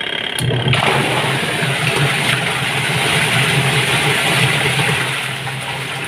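Single-tub washing machine starting up: its motor hum comes in about half a second in, joined a moment later by a steady churning rush as the tub turns. It runs very strongly, the sign that the machine's weak turning has been cured.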